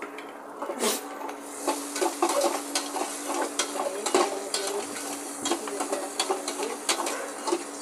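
Metal spoon stirring and scraping in a small cooking pot, clinking against its sides, while food sautés in hot oil with a sizzle that picks up about a second in.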